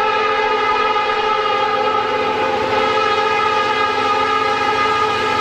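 Air horn of an EMD SD40-series freight locomotive held in one long, steady chord of several notes, sounded as the train approaches a road crossing.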